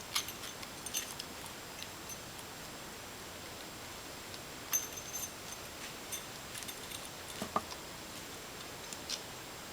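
Scattered light clicks and taps of small screws and parts being handled and fitted while a motorcycle fuel pump is put back together, with one louder knock a little past the middle.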